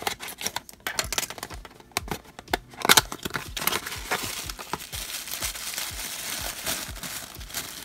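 Small cardboard box being slit open and its flaps pulled back, a run of clicks and snaps with the sharpest about three seconds in. Then tissue paper crinkling continuously as the wrapped figure inside is unwrapped.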